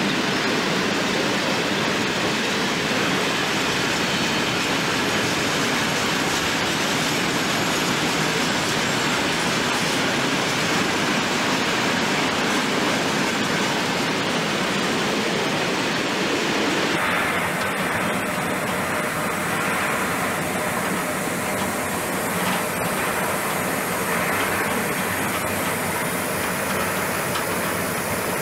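Goods train of covered and hopper wagons rolling past, a steady rushing noise of wheels on rail. A bit over halfway through the sound turns duller as the high hiss drops away.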